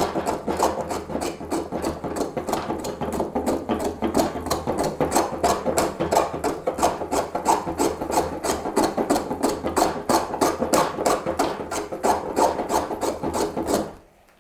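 Homemade wooden scrub plane with a highly cambered blade taking coarse shavings across the grain of partially air-dried Atlantic cedar, in rapid short rasping strokes, about three or four a second. The planing stops near the end.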